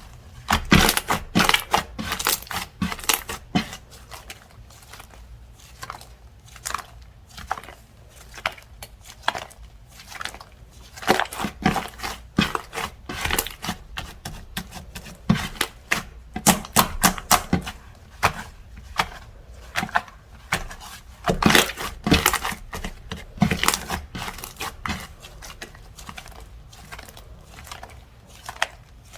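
Slime being squished, stretched and poked by hand, giving a steady run of irregular sticky pops and crackling clicks, some in quick clusters.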